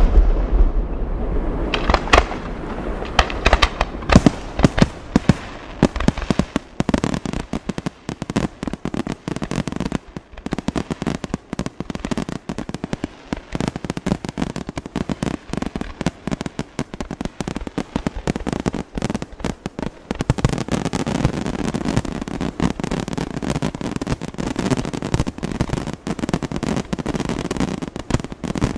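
Aerial fireworks shells bursting in rapid succession, with dense crackling and popping. A few heavy bangs come in the first few seconds, then a continuous barrage of overlapping bursts.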